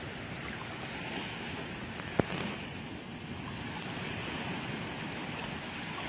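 Steady wind and shallow sea-water noise at the shore, with one sharp click about two seconds in.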